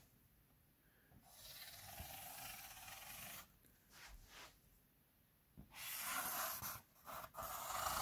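Felt-tip marker scratching along corrugated cardboard while tracing around a magazine's edge, in several strokes of one to two seconds with short pauses between.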